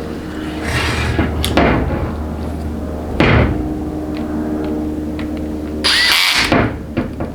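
Tools and metal transmission parts handled on a workbench: a few scraping and knocking noises, the loudest about a third of the way in and near the end, over a steady hum.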